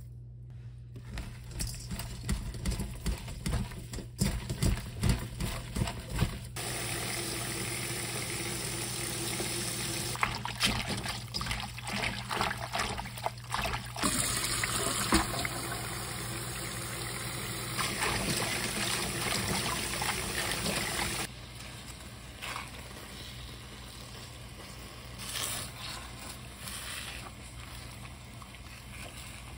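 Wet raw seaweed being handled with salt in a stainless mesh strainer, with scattered wet scrunches and clicks. Then a kitchen tap runs steadily into a bowl as the seaweed is rinsed. For the last third it is quieter, with the seaweed being stirred with chopsticks in a pan of hot water.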